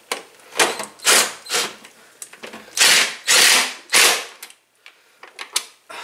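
20-volt cordless drill driving a screw into a window air conditioner's plastic side panel, run in about seven short bursts of the trigger, with a few light clicks near the end.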